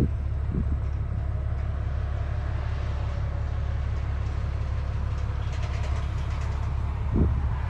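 Truck engine and road noise while driving, a steady low rumble, with a brief knock about seven seconds in.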